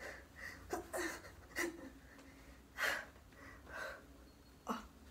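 A woman's short, effortful breaths and gasps, about six of them, as she strains to pull on and fasten a pair of too-small jeans shorts.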